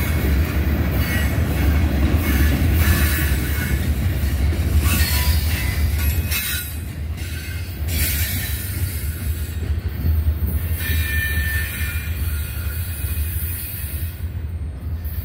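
Tail end of a CSX freight train rolling past: boxcar and flatcar wheels rumbling on the rails with high wheel squeal at times, growing quieter after about six seconds as the last car moves away.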